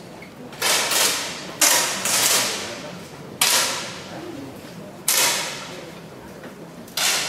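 10 m air pistols firing: sharp pops at uneven intervals, five or so in about seven seconds, each ringing briefly in the large hall.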